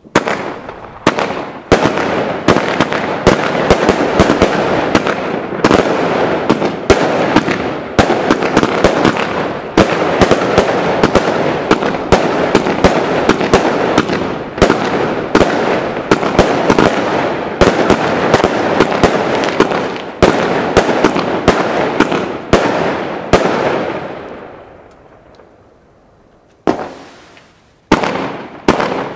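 Consumer firework cake firing: a dense, rapid string of shots and crackling starts abruptly, runs for about twenty-four seconds, then fades out. Two short bursts of bangs follow near the end.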